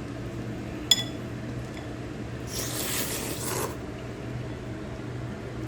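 A single sharp clink of tableware with a short high ring about a second in, then about a second of slurping noodle soup, over a steady low hum.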